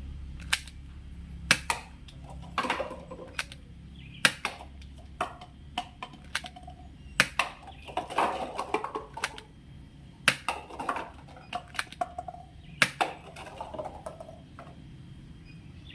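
Plastic toy guns being handled: sharp clicks and clacks at irregular intervals, roughly one a second, with faint handling noise between them.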